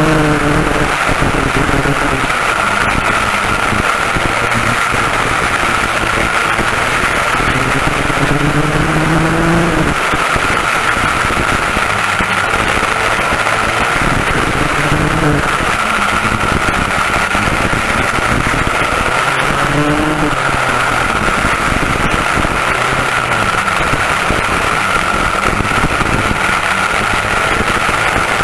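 Pair of West Bend 820 two-stroke kart engines running hard at race speed, the revs climbing and dropping several times, heard with heavy wind rush.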